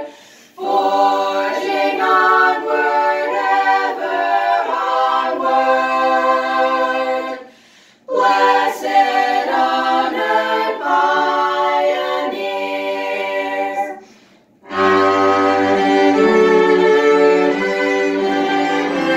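A small group of girls' voices singing a hymn in harmony, unaccompanied, in two phrases with a short breath between them. About 15 seconds in, the voices stop and three cellos take over with a bowed instrumental passage.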